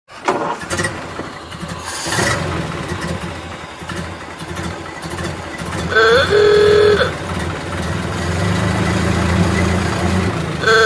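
Old car engines running with a low, steady rumble and a few knocks in the first couple of seconds. About 6 s in, an ah-ooga klaxon horn sounds once, swooping up and then holding its tone for about a second, typical of a Ford Model A horn. A second blast starts at the very end.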